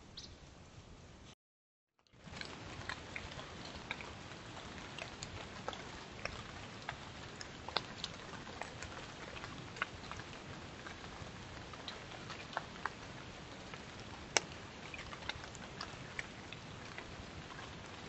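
Steady hiss of trickling creek water with many scattered sharp ticks of drips and small splashes. There is a brief dead gap about a second and a half in.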